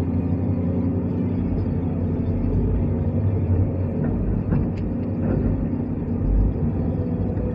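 New Holland Kobelco 215 excavator's diesel engine running at a steady drone, with a few faint knocks about halfway through.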